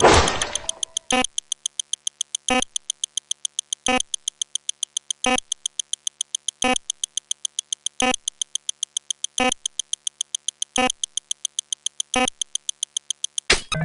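Sped-up synthetic counting sound effects: a fast, even train of short electronic clicks, several a second, with a stronger click about every second and a half. A louder noisy burst dies away over the first second.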